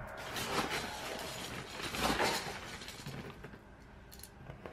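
Small black decorative pebbles clinking and rattling against each other as they are spread over the top of a terracotta pot, loudest about two seconds in.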